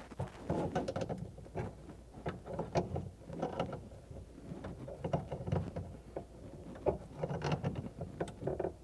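Irregular metallic clicks, knocks and scrapes of a wrench working the nut of a water supply line on an under-sink shutoff valve.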